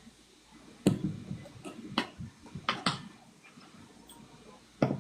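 A few sharp knocks, about five at uneven intervals, like close handling noise.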